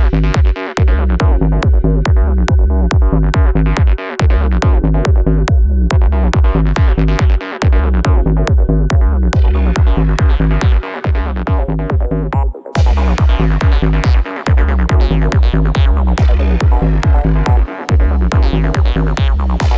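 Electronic trance music from a DJ mix: a steady driving kick drum under a rolling bassline and synth layers. The bass drops out briefly every few seconds, and brighter high sounds come in about two-thirds of the way through.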